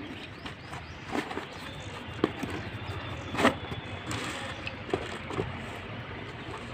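Handling noises from unboxing a phone: a few scattered knocks and clicks, the loudest about three and a half seconds in, over steady background noise.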